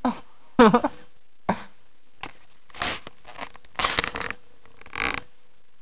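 Blanket and bedding rustling in several short, scratchy bursts as the camera is handled on the bed. Just under a second in, a brief voice-like sound falls in pitch.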